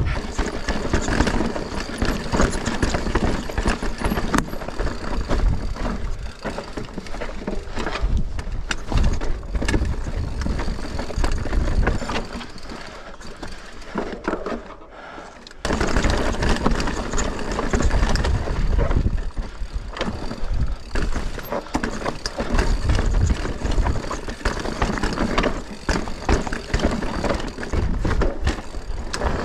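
Mountain bike riding down a rocky trail: tyres going over stone and the bike rattling over the bumps, as a steady rough noise. It drops quieter for a few seconds about halfway through, then comes back loud suddenly.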